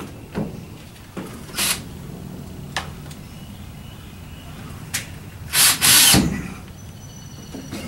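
Window frame being fitted into a wooden wall opening: a few sharp knocks, then two short, loud bursts from a power tool close together about six seconds in.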